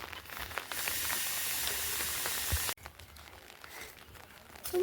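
A steady hiss lasting about two seconds that cuts off abruptly, followed by quieter background with a few faint ticks.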